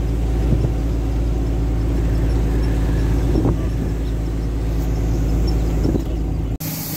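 Steady engine drone and road rumble of a moving truck, heavy in the low end. It cuts off abruptly near the end.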